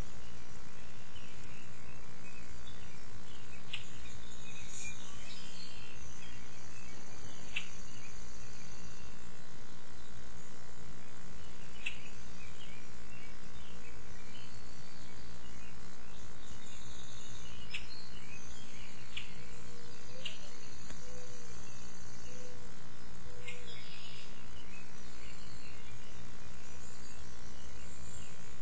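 Outdoor yard ambience: scattered short bird chirps over a steady low hum.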